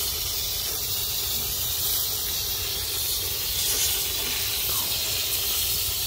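Garden hose spray nozzle hissing steadily as its jet of water washes soil off a freshly dug clump of ginger roots.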